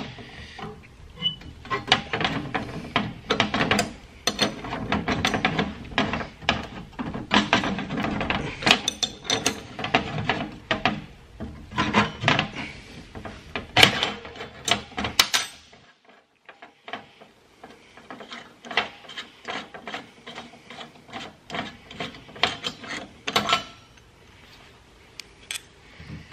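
Ratcheting wrench clicking in quick runs of strokes as it turns the bolt of a rivet nut installation tool, drawing up and crushing the back of the steel rivet nut so it mushrooms out. About halfway through the clicks thin out and turn quieter.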